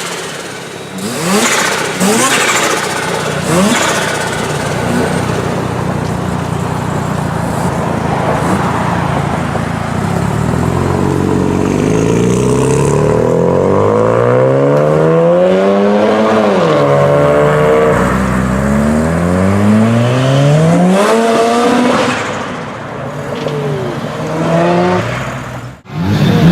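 Turbocharged car engine revving hard, its pitch climbing and falling again and again as the throttle is blipped.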